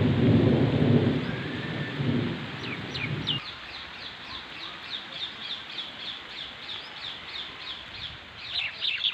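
Thunder rumbling over steady rain, the rumble cutting off abruptly about three seconds in. Rain keeps hissing while a bird calls in a quick series of short chirps, about three a second, growing louder near the end.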